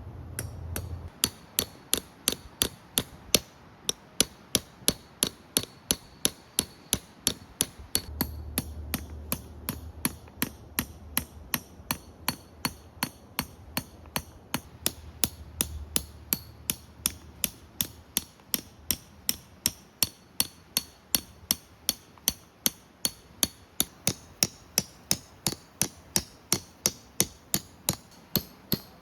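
Steady hand hammering: sharp, evenly spaced blows at about three a second, kept up without a break.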